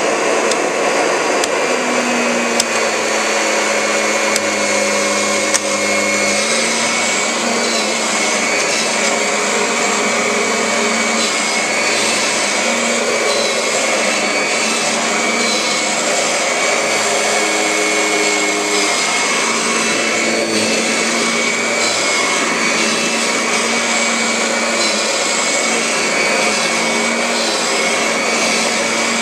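Kirby G5 upright vacuum cleaner running over carpet: mostly a steady rush of airflow from its large fan, with a thin high whine on top and a lower hum that swells and fades every few seconds as it is pushed along.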